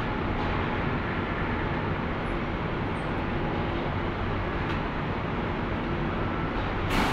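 Powder coating booth's air extraction and a hand-held electrostatic powder spray gun blowing powder: a steady rushing noise with a low hum, and a brief louder hiss near the end.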